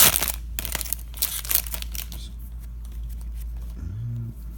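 Plastic wrapper of a baseball card pack crinkling as it is torn open, loudest in the first two seconds, then a few faint rustles.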